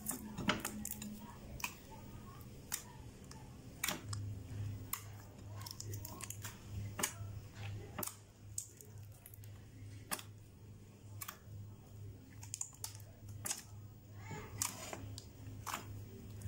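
Clear slime being stirred and kneaded by hand in a glass dish, giving irregular wet clicks and squelches as it thickens from a runny liquid into a sticky mass.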